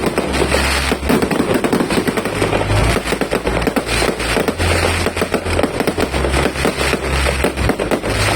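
A 5,000-shot fireworks cake firing in rapid succession: a dense, unbroken stream of bangs and crackles, many shots a second.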